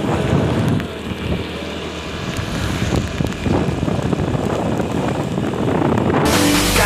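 Wind buffeting the microphone of a moving motorcycle, with engine and road noise underneath, in uneven gusts. Loud music cuts in suddenly near the end.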